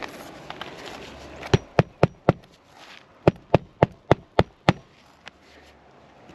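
Hammer driving a roofing nail through a lifted asphalt shingle into the roof deck: four quick strikes, a short pause, then six more, about four a second. It is part of a repairability test on brittle, weathered shingles.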